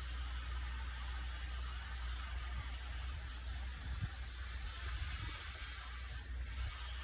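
Steady hissing spray of water, as when an air conditioner is rinsed with a pressure sprayer, over a low steady hum.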